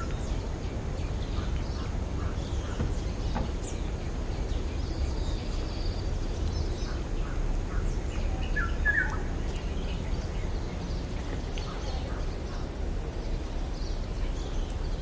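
Outdoor ambience: a steady low rumble with scattered short bird chirps, and a clearer bird call about nine seconds in.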